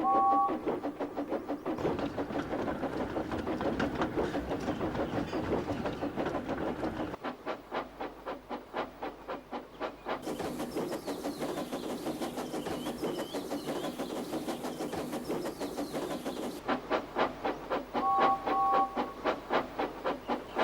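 Goods wagons rolling along the rails, their wheels clattering over the rail joints in a steady rhythmic clickety-clack, in several back-to-back clips. A two-note steam whistle sounds right at the start and again about 18 seconds in, and high squealing runs through the middle stretch.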